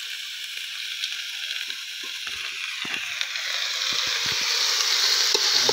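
Raw chicken pieces sizzling in hot oil in a metal pot, the sizzle growing louder toward the end. A few short clicks and scrapes come from the metal spatula against the pot.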